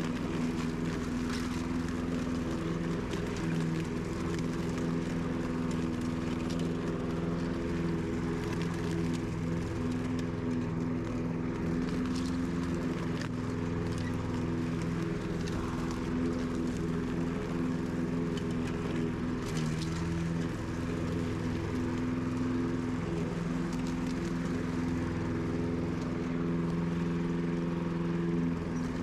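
Walk-behind petrol rotary lawn mower engine running steadily while it is pushed over grass.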